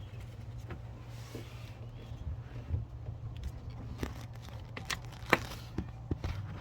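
Vehicle engine idling with a steady low hum, a rough idle. Several sharp clicks and knocks fall in the second half.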